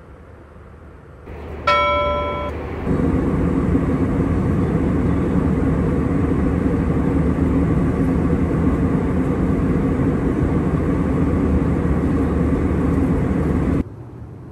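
A short bell-like chime about two seconds in. Then the steady loud rush of an Airbus A321 airliner's cabin at cruise, with a thin high whine, which cuts off abruptly near the end.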